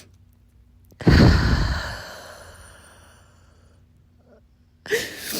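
A woman's long, heavy sigh that starts suddenly about a second in and trails off over a couple of seconds, then a shorter breath near the end.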